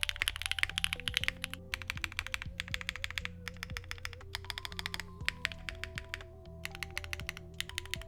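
Fast typing on a mechanical keyboard with factory-lubed HMX Desert linear switches, a POM plate and GMK keycaps: a dense patter of keystrokes in bursts with short pauses. Soft background music with a bass line plays underneath.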